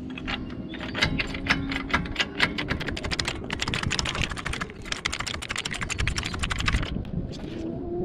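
Hand socket ratchet clicking rapidly as a nut is run up on the front suspension, a fast run of clicks that stops about seven seconds in.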